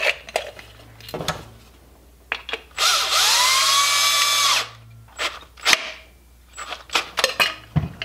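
Cordless drill spinning up and running for about two seconds, turning a bolt to tighten a nut down against the bottom of a tin can. Sharp metal clinks and knocks from the wrench and can come before and after the drill runs.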